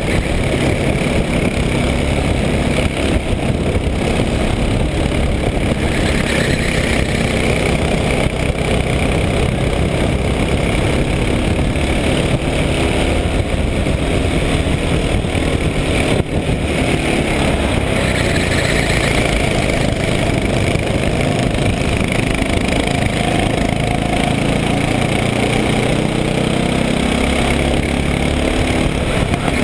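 Racing kart engine running hard from the onboard view, its pitch rising and falling as the kart accelerates out of corners and lifts off into them.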